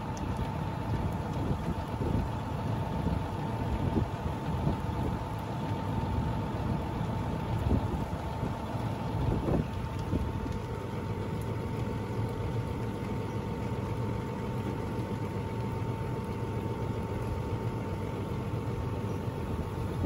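Tractor engine idling steadily, with a thin, steady high whine running over it.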